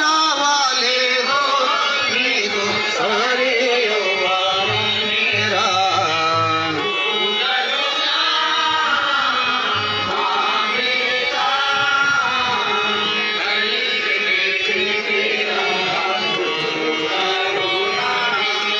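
Indian devotional song playing: a sung melody over instrumental accompaniment.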